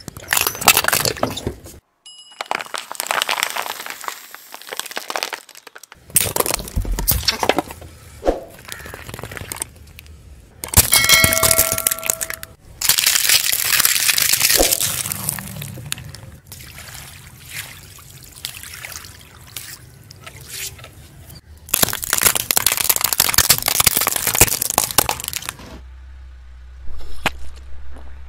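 Car tyres slowly rolling over and crushing objects in a run of short clips (squeezable toys, a tray of quail eggs, a liquid-filled rubber toy), with crackling and crunching that stops and starts abruptly at each cut.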